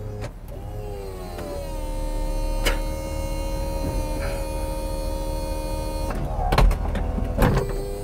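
Chevrolet SSR's power retractable hardtop lowering: an electric motor whines steadily as the tonneau cover lifts and the roof begins to fold. A few sharp clunks come about six to seven seconds in, then the motor whine resumes at a slightly different pitch.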